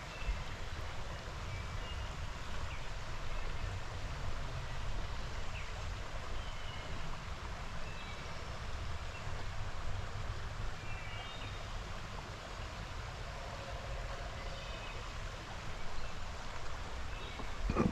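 Creek water running steadily, with a low wind rumble on the microphone and a few short, faint high chirps.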